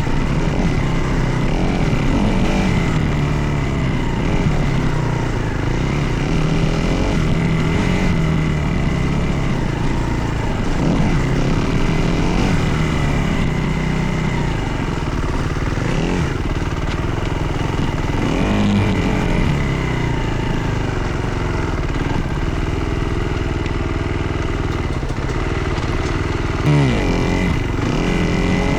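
Dirt bike engine running under way, its pitch rising and falling continuously with the throttle. Near the end the revs drop sharply and climb again.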